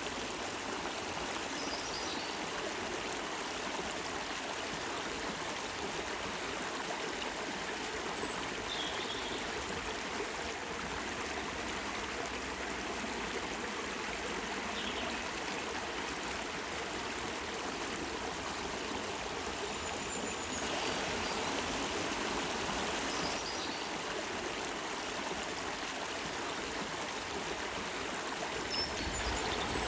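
Water flowing steadily in a stream, a continuous rushing and trickling.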